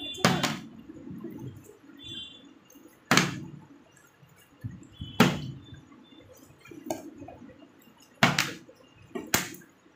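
Plastic water bottle being flipped and landing on a tiled floor: five sharp knocks, a couple of seconds apart.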